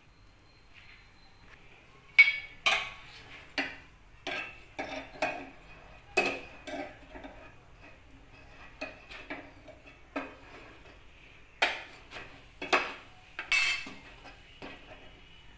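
Irregular sharp clicks and light metallic clatters, about twenty of them, as a jowar bhakri is handled and turned over the burner of a steel gas stove. The loudest click comes about two seconds in, with another close cluster near the end.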